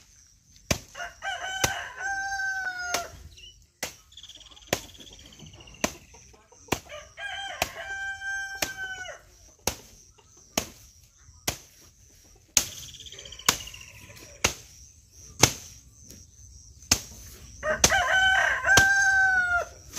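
A rooster crowing three times. Under it are sharp strikes about once a second from a machete chopping a pile of fresh fodder grass on the ground, and some strikes are louder than the crowing.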